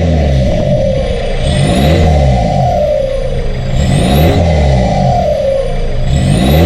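A BMW E46 320d's 2.0-litre four-cylinder turbodiesel is blipped up on the throttle and let fall back, three times, about every two and a half seconds. A high whistle climbs with each rev and slides down after it.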